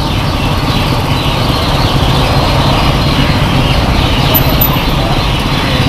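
A gas wok burner running steadily at full flame, with noodles frying in the wok over it.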